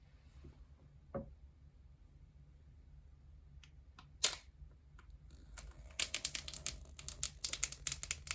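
iPhone 12 Pro Max box packaging being unsealed by hand: a single sharp click about four seconds in, then a fast, irregular run of crackling and tearing clicks from about six seconds on.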